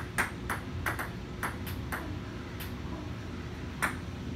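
Table tennis ball in a rally, clicking sharply off the table and being struck back and forth, about nine clicks at uneven intervals, most of them in the first two seconds.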